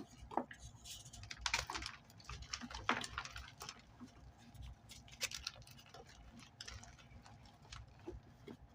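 Reformed gym chalk being crushed and crumbled, giving irregular dry crunches and crackles, with a steady low hum underneath.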